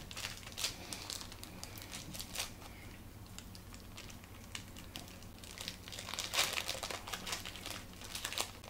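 Plastic wrapper of a Cadbury Caramello Koala chocolate bar being crinkled and torn open by hand, in bursts of crackling that are loudest about six to seven seconds in.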